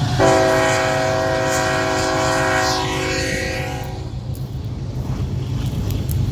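BNSF diesel freight locomotive's multi-chime air horn sounding one long blast of about four seconds: a chord of several steady notes that starts sharply and cuts off. Underneath, the lead locomotives' diesel engines keep up a steady low rumble.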